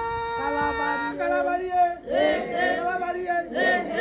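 A woman singing. She holds one long, steady note, and a lower voice holds a note beneath it for a moment. About halfway through, a new, wavering sung phrase begins.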